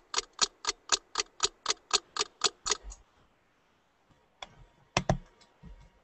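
Rapid clicking at a computer: a run of evenly spaced sharp clicks, about four a second for about three seconds, then a few scattered clicks and a duller knock about five seconds in.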